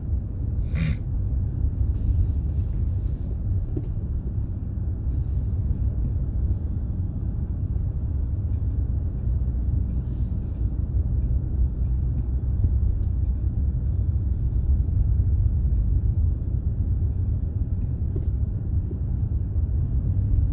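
Steady low rumble of a moving car's engine and tyres heard from inside the cabin, with a few faint short ticks near the start and about halfway through.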